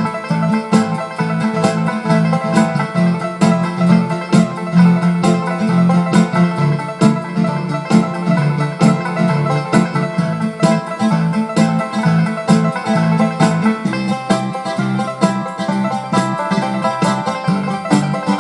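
Multitrack bluegrass-style instrumental: banjo picking over bass, a steady drum beat and 12-string guitar, with a mandolin part layered on top.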